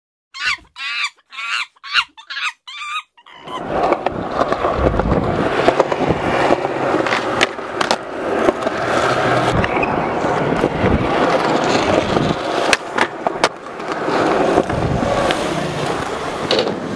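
A monkey screeching in about seven short, quick shrieks. About three seconds in, a skateboard starts rolling on concrete, with a few sharp clacks of the board.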